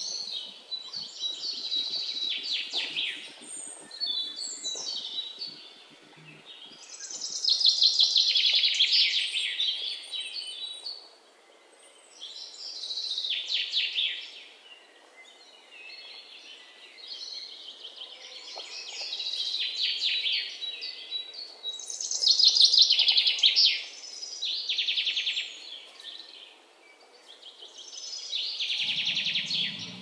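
Birds chirping and trilling in rapid bursts that come every few seconds, from a birds-chirping sound effect laid over the video.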